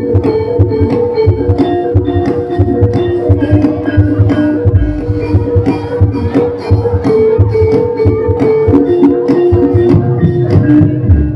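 Live Javanese gamelan music for a jathilan horse dance: hand drums beat a fast, busy rhythm under ringing metallophone notes.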